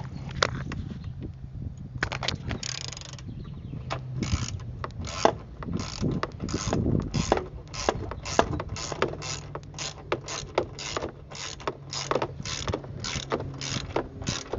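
Ratchet wrench with an extension and a 10 mm socket clicking in rapid regular strokes, about three a second, as it loosens bolts on the air filter housing.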